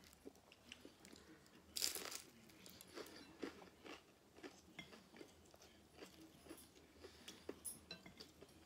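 Someone biting into a crisp fried egg roll (lumpia), with one louder crunch about two seconds in, then chewing with small crackly crunches.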